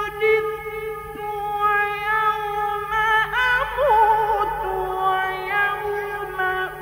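A male Quran reciter chanting in the ornate mujawwad style. He holds long sustained notes, with quick wavering melismatic runs about three seconds in.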